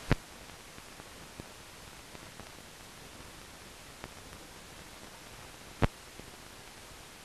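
Steady hiss with two sharp clicks, one right at the start and another about six seconds in, plus a few faint ticks: surface noise and pops of an old film soundtrack.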